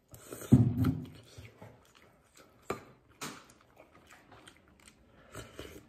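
A person eating rice porridge with a metal spoon: a short hummed 'mm' about half a second in, then quiet chewing and a few light clicks of the spoon against the bowl as he scoops again.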